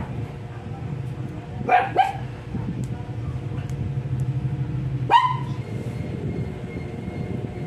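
A small dog barking: two quick barks about two seconds in, then one more about five seconds in, over a steady low hum.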